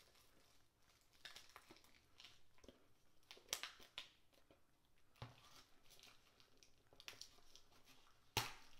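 Clear plastic wrap being picked at and peeled off a steelbook case by hand: scattered soft crinkles, with a sharp plastic snap near the end.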